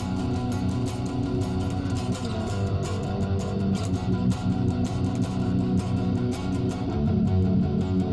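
Fender Thinline Telecaster, a semi-hollow electric guitar, played with quick, even pick strokes over held chords and notes.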